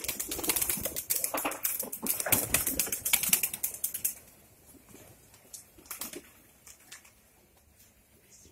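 Pigeons flapping and scuffling inside wooden loft nest boxes as a hand reaches in among them: a rapid clatter for about four seconds, then only scattered taps.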